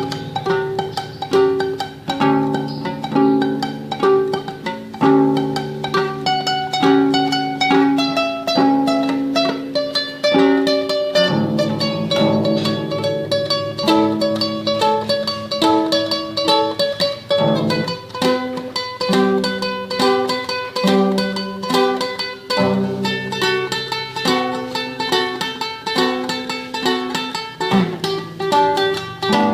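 Solo classical guitar playing a fast tremolo melody, rapidly repeated plucked notes over a moving plucked bass line.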